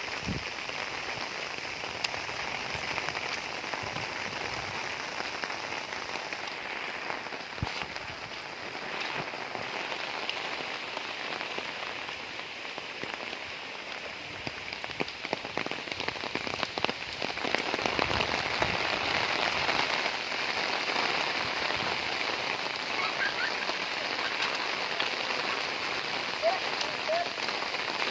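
Heavy rain falling steadily, with many individual drops striking close by. It grows louder a little past halfway through.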